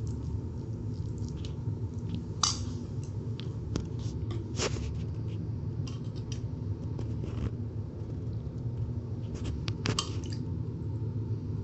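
Steel ladle clinking and scraping against a stainless steel plate and pot as rice is pressed down and sodhi stew is ladled over it, in scattered sharp clicks, with a soft squish of rice and a steady low hum underneath.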